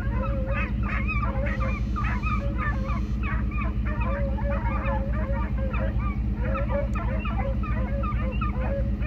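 A pack of hounds baying as they run a coyote's trail: many short, overlapping calls in quick succession, with no let-up. Under them, a truck's engine idles with a steady low hum.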